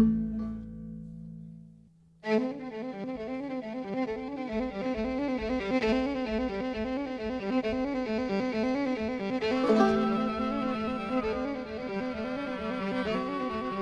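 Old-time tune played on fiddle and banjo. A ringing note dies away, and after a short pause the tune starts about two seconds in, with long held fiddle notes over the plucked banjo.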